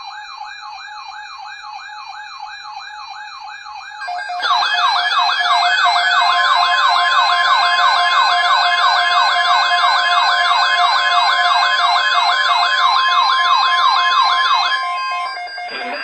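Several NOAA weather radios going off together with their alert alarms: electronic warbling sirens sweeping up and down several times a second, with more radios joining and the sound getting louder about four seconds in. From about six seconds a steady 1050 Hz warning tone sounds alongside them, and everything stops just before the end.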